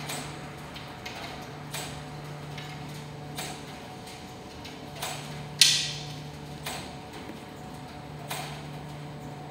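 ADC commercial tumble dryer running, its steady hum broken by regular knocks about every second and a half as the drum turns, with one louder clank about halfway through.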